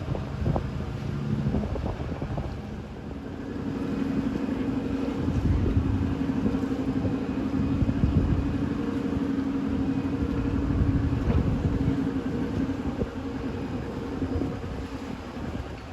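Tugboat's diesel engine running steadily, with a hum that comes in about three and a half seconds in. Wind buffets the microphone.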